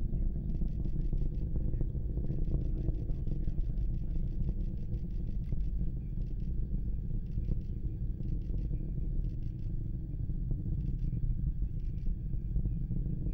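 Distant, deep, steady rumble of a Falcon 9 rocket's nine Merlin engines during ascent. Short bouts of fast, high-pitched pulsing chirps come and go over it.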